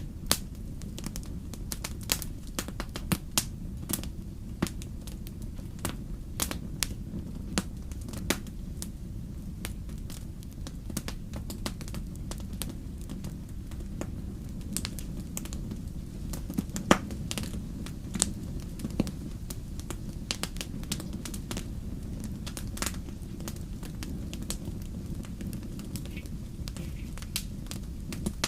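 Wood bonfire crackling, with sharp pops at irregular intervals over a steady low rumble of burning.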